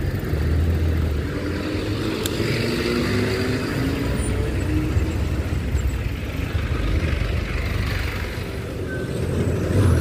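Motorcycle engine running in a low gear, its revs rising a few seconds in, with wind rush on the microphone and road traffic around.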